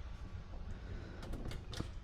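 A quick run of light clicks and taps, bunched together from about a second in, as metal sockets and ratchets are handled, over a steady low hum.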